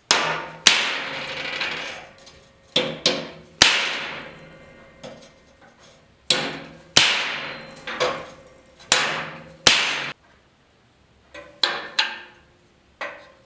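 A hammer striking a piece of 3/16-inch flat steel bar to form a dimple in it. There are about fifteen sharp, ringing metal blows in uneven bursts, with a short pause about two-thirds of the way through.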